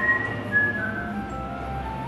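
A whistled melody over background music. The whistling is strongest at the start and fades after about a second, leaving the softer music.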